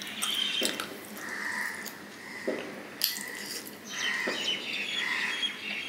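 Close-up eating sounds: fingers squishing and mixing rice with chicken curry on a plate, with wet chewing and lip smacks. They come as irregular clicks and squelches.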